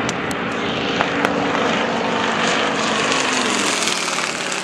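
Propeller aircraft flying low overhead, its piston engine's drone dropping in pitch about four seconds in as it passes. A few sharp cracks sound in the first second and a half.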